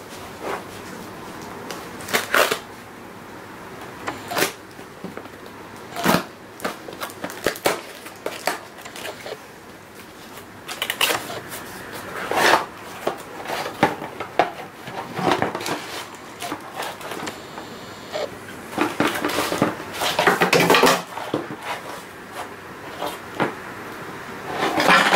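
Cardboard and plastic packaging being handled and pulled out of a glass aquarium, with rustling, scraping and irregular knocks.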